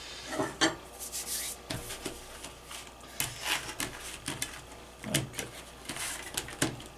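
Hands pressing and rubbing floured pizza dough into disposable aluminum foil pans: irregular rubbing and scraping strokes with a few light knocks.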